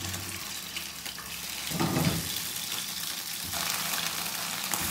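Whole head-on gambas sizzling in hot oil in a frying pan as they are laid in, the sizzle getting louder about three and a half seconds in.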